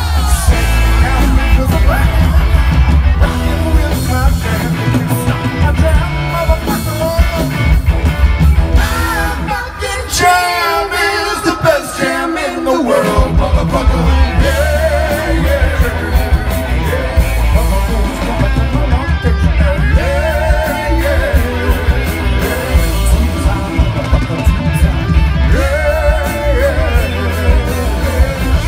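Live rock band playing loud through a festival sound system: electric guitar, bass and drums under sung and shouted vocals. The bass drops away for a few seconds about ten seconds in, then the full band comes back in.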